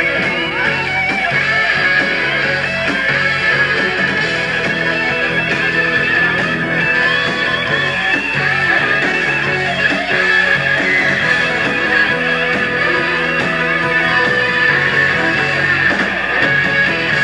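A rock band playing live, with two saxophones playing together over guitar and drums.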